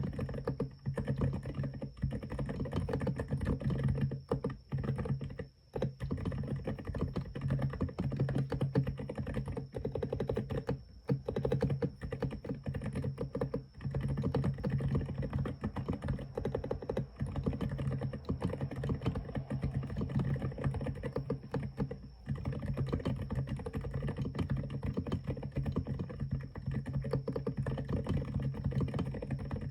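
Fast continuous typing on a mechanical keyboard with silent tactile 'Icicle' switches (SPM × Semokey): dense, muted key clicks with a few short pauses, over a steady low hum.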